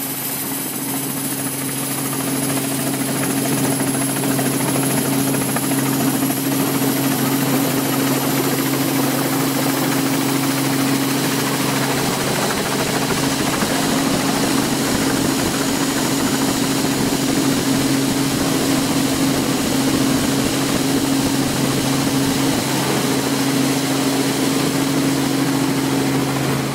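Steady aircraft engine drone: a low hum under a broad rush, with a faint high whine on top, unchanging throughout.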